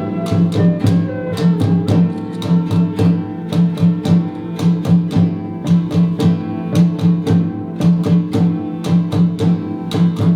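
An early-music ensemble playing a medieval cantiga: instruments holding low notes over a steady drum beat, with sharp strikes falling at an even pace.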